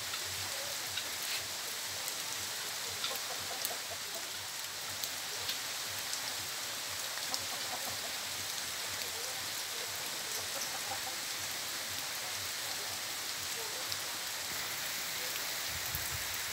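Heavy rain falling steadily, with a sharp tap of a drop landing close by every second or so.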